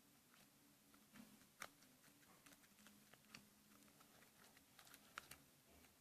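Faint, scattered soft clicks and crackles of homemade slime being kneaded and mixed by hand, a few a second.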